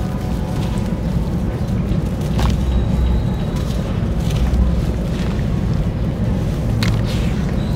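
Hands crumbling clumps of dusty sand into water in a plastic basin, with a couple of sharper splashes or drops, over a steady low rumble.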